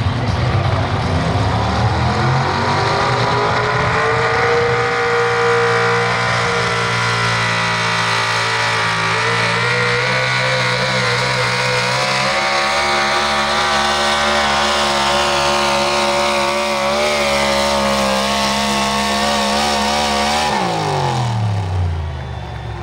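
Pro Stock 4x4 pulling truck's engine at full throttle under load through a pull. The pitch climbs over the first few seconds, then holds high and nearly steady. About twenty seconds in it drops sharply as the engine lets off at the end of the run.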